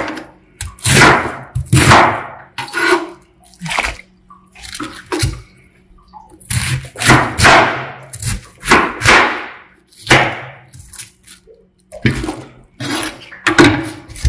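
Cabbage pieces splashing into a stainless steel bowl of water as they are washed, mixed with a kitchen knife cutting through cabbage on a plastic cutting board. The sounds come as irregular separate splashes and crunches.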